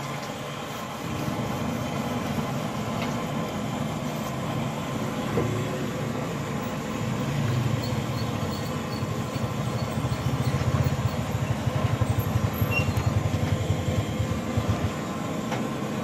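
A motor engine running close by: a low throb throughout that grows louder about halfway through and pulses quickly.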